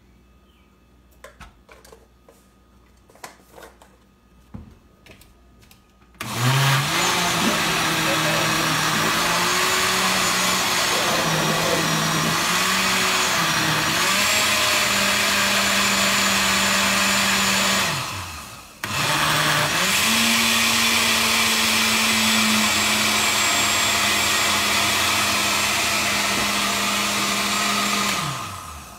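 Countertop blender puréeing a thick batter of soaked black-eyed peas and peppers for moin moin. A few light handling clicks come first; the motor starts about six seconds in with its pitch wavering as the batter churns, then runs steady. It stops briefly near the middle with a falling wind-down, restarts, and winds down again at the end.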